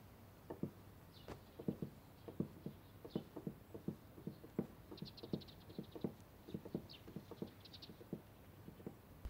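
Several people's footsteps on a wooden floor: irregular, quiet knocks a few times a second, with a few brief light rattles in between.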